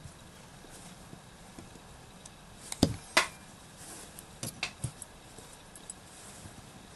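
Sharp clicks and taps of a folding knife and a small screwdriver being handled during disassembly: two loud clicks about three seconds in, then a few lighter clicks and ticks.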